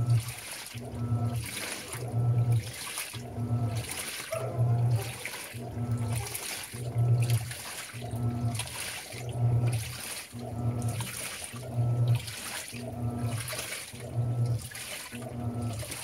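Panasonic Ag+ 16 kg top-load washing machine agitating a load of clothes in water during the wash stage of its quick cycle. The pulsator motor hums in short strokes about once a second, and each stroke is followed by water sloshing through the tub.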